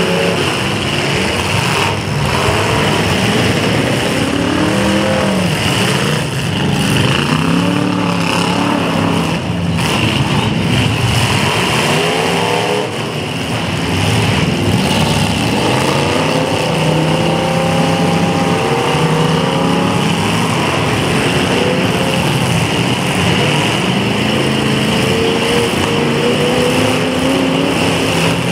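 Several demolition derby cars' engines revving up and down over one another, their pitch climbing and dropping repeatedly, with a few sharp knocks from the cars.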